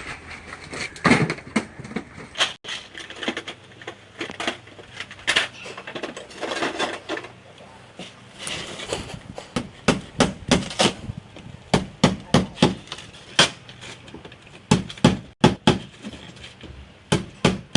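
An irregular series of sharp knocks and bangs, like hammering, coming in quick runs of blows in places.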